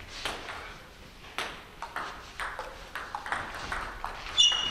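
Table tennis balls ticking against bats and table tops in irregular sharp clicks, with a louder, ringing ping near the end.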